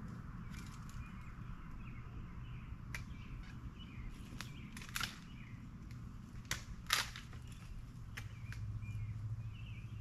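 Sharp knocks and snaps from a long-handled garden tool striking the soil and debris, a handful spread through, the loudest about five and seven seconds in. Birds chirp faintly behind.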